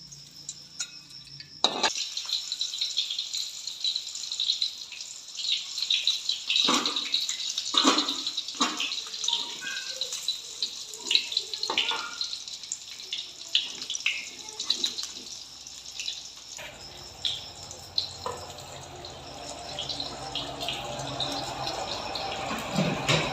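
Hot oil sizzling and crackling in a frying pan as food fries. It starts suddenly about two seconds in, with a dense high hiss full of small pops. A lower, steadier rushing noise joins near the end.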